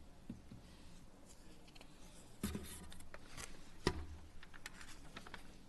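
Quiet room sound in a legislative chamber: scattered rustling and light clicks, with two soft thumps, about two and a half and four seconds in.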